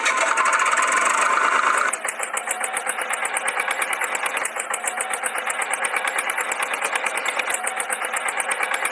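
A thin, bass-less tractor engine sound, as from a toy's sound effect: a steady whir for about two seconds, then a fast, even chugging idle of about eight beats a second.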